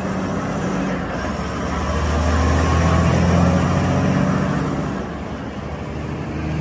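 Heavy-haul Volvo truck's diesel engine running with a low hum as the truck pulls a long multi-axle lowboy trailer past, with tyre and road noise. The sound swells to its loudest about halfway through, then eases off.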